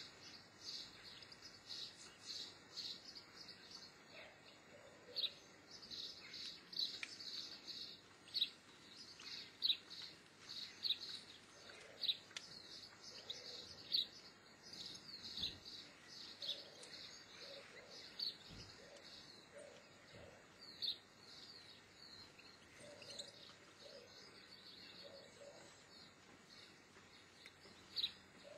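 Small birds chirping: short, high calls repeated a few times a second, thinning out near the end, with fainter lower notes now and then.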